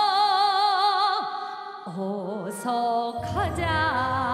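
A high voice singing a Korean folk song, holding long notes with a wide, even vibrato over a steady accompaniment; deeper accompaniment comes in a little after three seconds.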